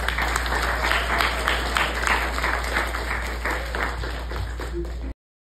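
Audience applauding, many hands clapping over a low steady hum; it cuts off suddenly about five seconds in.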